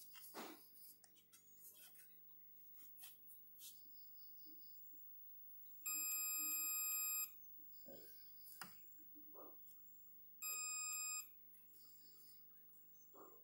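Digital multimeter giving its continuity beep twice, once for about a second and a half and once more briefly, as the probe tip touches the MOSFET pins of an HD7970 graphics card's power stage: the beep marks a near-zero-resistance path, the sign of the short being traced. Light clicks and taps of the probe tips on the board come between the beeps.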